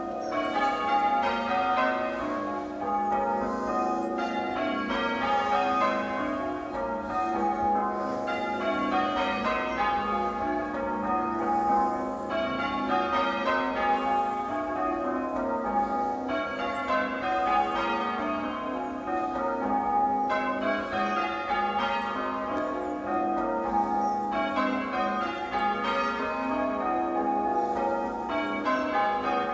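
Church tower bells being rung in a peal by change ringing: one bell after another in an unbroken, even rhythm of strokes, each ringing on over the next.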